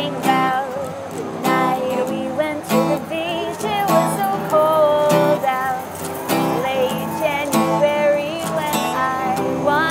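Acoustic guitar strummed in a steady rhythm under a sung melody with vibrato: a live acoustic song performance.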